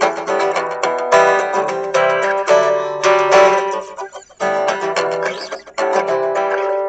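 Solo guitar improvised freely: picked notes and strummed chords in short phrases, with brief breaks between them.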